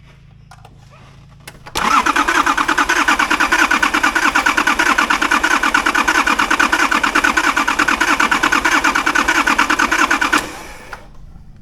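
Nissan RD28 inline-six diesel being cranked over by its starter, an even rapid chug for about eight seconds that then stops. Fuel has only just been bled through to the injectors and the engine is not yet holding a run.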